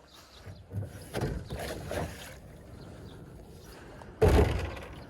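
A kayak being slid and bumped down a river bank toward the water: a few rough scraping and rustling sounds, then one loud thump about four seconds in.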